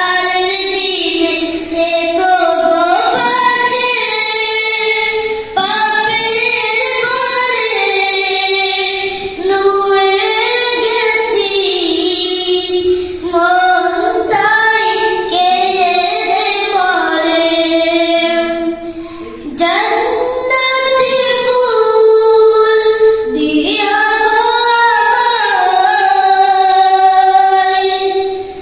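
A boy singing solo without instruments, long melodic phrases with held, wavering notes and short pauses for breath between them.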